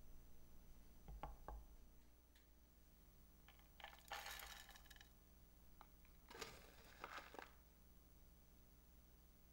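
Dark granular substrate poured from a plastic spoon into a clear acrylic container: two short spells of granules trickling and rattling onto the container floor, about four seconds in and again about six and a half seconds in. Faint, with a few soft knocks from the container being handled near the start.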